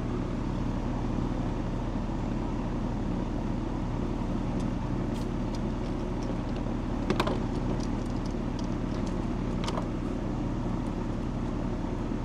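Central air conditioner's outdoor condensing unit running, a steady compressor and fan hum, with a couple of light metallic clicks about 7 and 10 seconds in.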